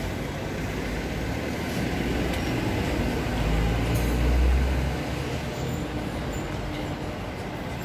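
City street traffic noise with a heavy vehicle's low engine rumble that swells and fades as it passes, about three to five seconds in.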